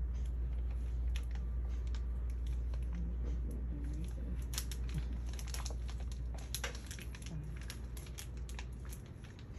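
Crinkling plastic and small clicks as gloved hands open the clear plastic packaging of an oral swab test kit, with a quick run of clicks around the middle. A steady low hum runs underneath and drops away near the end.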